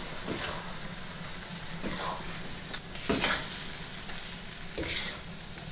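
Metal ladle scooping hot sauce out of a wok on a gas burner and pouring it into a bowl, the sauce sizzling in the wok. The ladle scrapes and knocks against the wok about four times, loudest a little past three seconds in.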